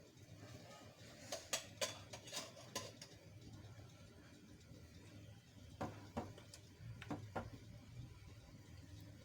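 A spoon clinking and knocking against a cooking pot of boiling greens, a handful of light strikes in two short clusters, over a low steady hum.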